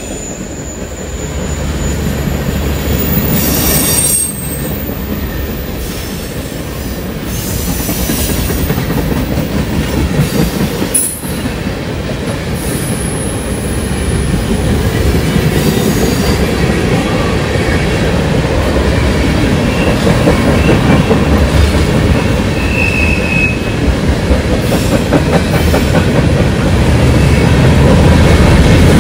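Freight cars rolling past at speed: a steady rumble and clatter of steel wheels on rail, with brief high wheel squeals now and then on the curve. The sound breaks sharply twice, about four and eleven seconds in, and grows louder toward the end.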